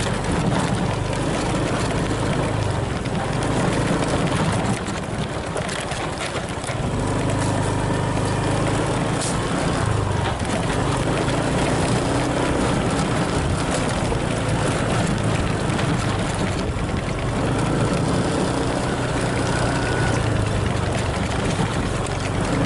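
Small motorbike engine running steadily while riding, its low hum rising and easing with the throttle, with wind noise over it.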